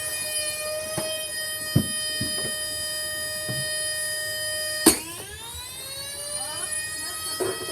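Shark Rotator vacuum's electric motor running with a high, steady whine, with a few knocks. A loud sharp knock comes about five seconds in; the whine drops in pitch and climbs back up over the next two seconds.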